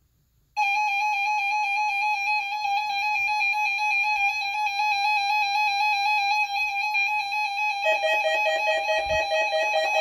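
Weather alert radio sounding its alarm for a Required Weekly Test. A steady electronic tone with a slight warble starts abruptly about half a second in and drops to a lower pitch near the end.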